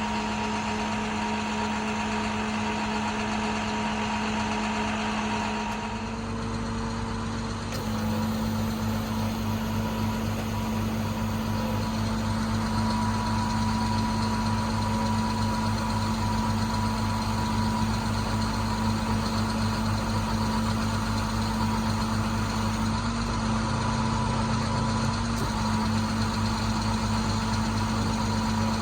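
International 4300's MaxxForce DT inline-six diesel engine running steadily at idle, with a steady hum over the engine beat. About six seconds in the higher hiss drops away, and the engine gets slightly louder soon after.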